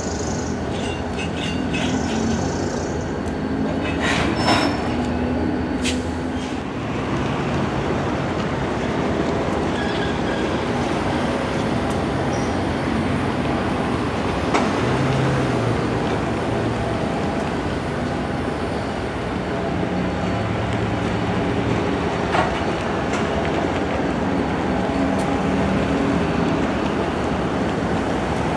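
Long freight train of loaded cars rolling past on the rails: a steady rumble and rattle of wheels and cars, with a few sharp clanks along the way.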